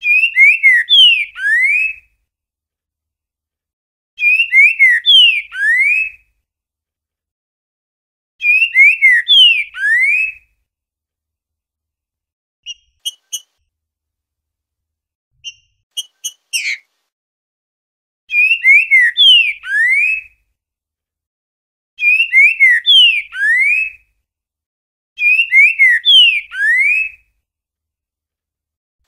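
Green-winged saltator (trinca-ferro) singing its boiadeiro song: a short phrase of loud slurred whistles that ends on a rising note. The phrase comes six times, about every four seconds, and a few short, sharp call notes fill the gap in the middle.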